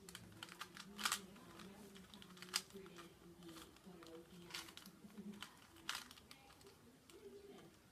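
Plastic 3x3 Rubik's cube being twisted by hand: faces turning with sharp clicks and clacks at irregular intervals, a few louder snaps among softer rattling.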